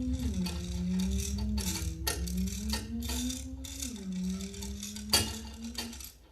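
Foley sound effect made by handling objects: continuous dense rattling over a low rumble. A pitched tone slowly rises and drops back down several times, then stops shortly before the end.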